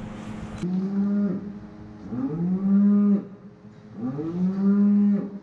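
Holstein dairy cattle mooing: three long moos about two seconds apart, each rising in pitch and then held. A steady hum stops abruptly under a second in.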